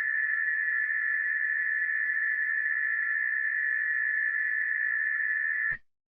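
Emergency alert alarm sounding one steady, high-pitched tone that holds unbroken and cuts off suddenly near the end.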